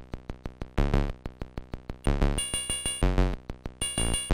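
Chiptune demo music from the Yamaha sound chip on a DigiMuz cartridge for the Commodore Plus/4. It plays a drum break of quick, even ticks, about six a second, and deep bass notes come in about two and three seconds in.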